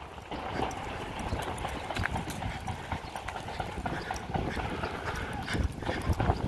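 Footsteps on brick paving, an uneven run of steps from someone walking with the camera, over a low rumble.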